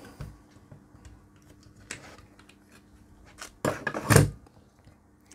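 A circuit board being unclamped and lifted out of a plastic PCB holder: a few light clicks, then a couple of louder clunks about four seconds in as the holder's arms knock.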